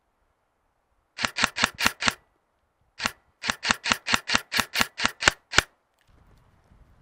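Airsoft gun firing in quick repeated shots: a string of five sharp cracks at about five a second, a short pause, then about a dozen more at the same pace.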